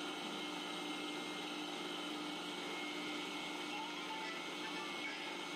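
Indian mixer grinder (mixie) running steadily with a constant-pitched whirring hum, grinding sugar and cocoa powder into a fine powder in its steel jar.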